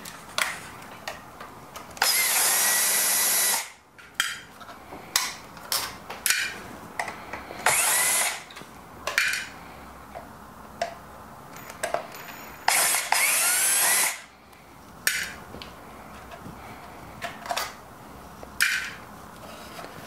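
A power screwdriver backing out the three screws that hold a coffee grinder's gearbox and motor assembly to its chassis. It whirs in three bursts of one to two seconds each, a few seconds apart, with a rising whine in the bursts. Small clicks and knocks of handling come between the bursts.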